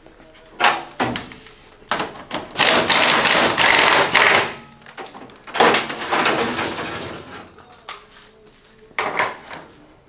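Hand tools and metal parts working a motorcycle's rear wheel in a fast, timed wheel change. Sharp metallic knocks come first, then two long rattling bursts of tool noise of about two seconds each, then another clank near the end.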